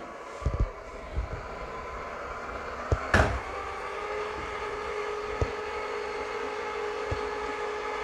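Golongele robot vacuum running with a steady motor hum as it drives itself back toward its charging base, with a few light knocks, the loudest about three seconds in.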